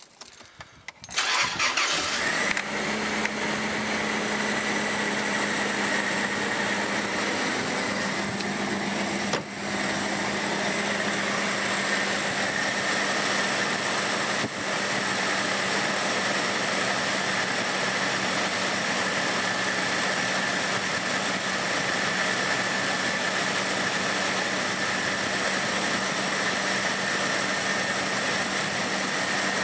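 Cold start of a Toyota 1FZ-FE 4.5-litre straight-six: the engine cranks briefly, catches about a second in, and settles into a steady idle that holds.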